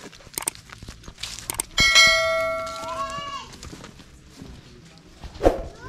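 YouTube subscribe-button sound effect: a few mouse clicks, then a bell ding that rings out and fades over about a second and a half. A short loud voice-like call comes near the end.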